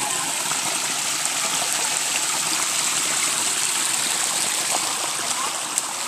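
Shallow woodland creek and small waterfall running steadily over layered rock ledges: an even hiss of flowing water.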